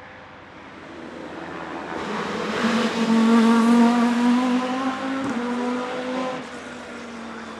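Volvo S40 BTCC Super Touring car's 2.0-litre naturally aspirated five-cylinder engine with individual throttle bodies, running at high revs as the car passes close. It grows louder to a peak about three seconds in, holding a fairly steady pitch, then fades as the car moves away.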